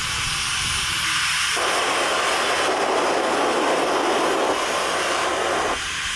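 Test noise played through the PA sound system while it is being tuned: a steady hiss over the upper range that suddenly widens to take in the mids from about a second and a half in, then narrows again near the end.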